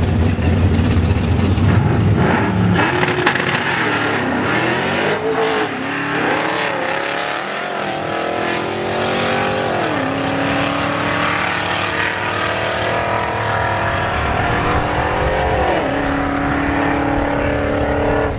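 Two drag cars, a Pontiac G8 and a Fox-body Mustang, launch from the start line and run down the quarter-mile. The engines rev up through each gear, with the pitch dropping back at the upshifts, and the sound grows thinner as they pull away.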